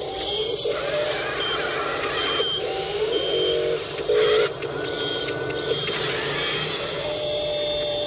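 Electric drive and lift motors of a toy RC wheel loader whining through their gearboxes as it drives and raises its bucket. Short beeps and rising whines come and go over a steady hiss.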